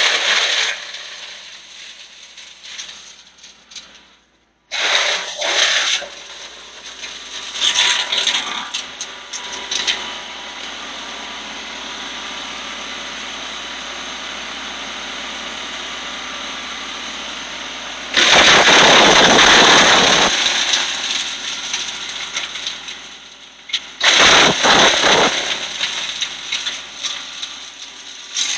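Disc-type branch chipper running, with a steady machine noise broken by loud bursts of chipping and rattling as wood is chewed up and chips are blown out the chute; the longest, loudest burst comes about two-thirds of the way in, with others near the start, around 5 and 8 s, and near the end.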